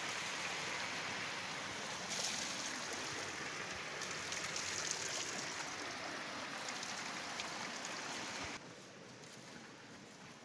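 Steady rush of tubewell water running in a concrete channel, a continuous hiss. It cuts off abruptly to a much quieter outdoor background about eight and a half seconds in.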